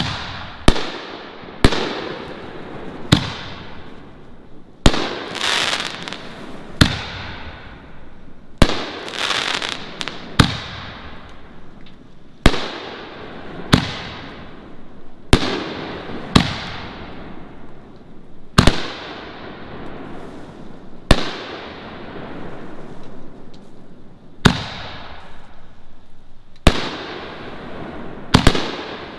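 Four-inch canister aerial shells being fired in quick succession from fiberglass mortar tubes. There is a sharp, loud bang every one to three seconds as shells lift and burst, each followed by echo and crackling that dies away.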